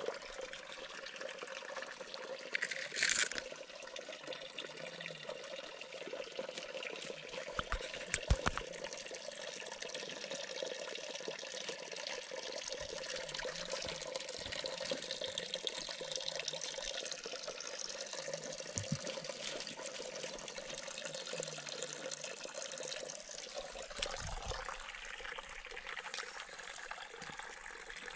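Water trickling steadily into a small garden pond, with a few short knocks against the camera.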